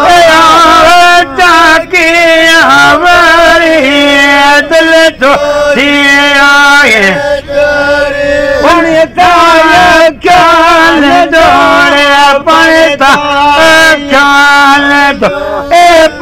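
Men singing a traditional chant-like folk song unaccompanied, in long held, wavering notes with sliding ornaments and brief breaks for breath.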